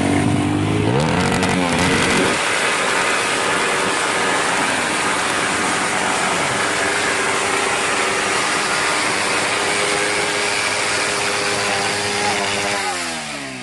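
Motorcycle engine revved hard: the pitch climbs over the first two seconds, holds at high revs for about ten seconds, then falls away near the end as the throttle is released.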